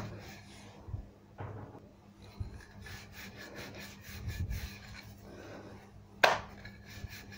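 Wooden rolling pin rolling maida paratha dough on a marble countertop: soft rolling and rubbing strokes with light knocks, and one sharp knock a little past six seconds in as the dough sheet is lifted and put back down.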